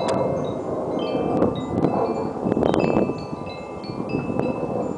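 Wind chimes ringing, clear high tones at several pitches struck at irregular moments, over a rushing wind that swells about two to three seconds in.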